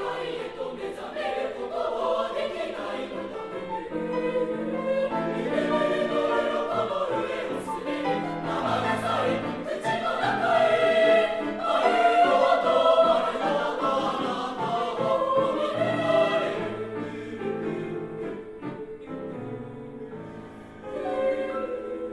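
A junior high school choir singing in Japanese with many voices on sustained chords. It is loudest about ten to thirteen seconds in, then falls away, with a brief swell near the end.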